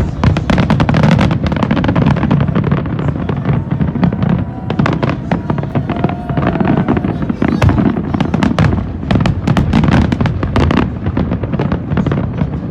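Fireworks display: many aerial shells bursting in rapid, overlapping bangs and crackles over a continuous low rumble.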